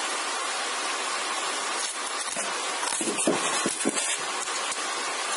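Steady hiss of background noise, with a few light knocks and rustles between about two and four seconds in as hands handle a roll of floral tape and a wired beaded bud.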